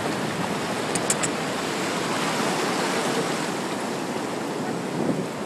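Ocean surf washing in over shallow sand: a steady rush of water, with a couple of brief high ticks about a second in.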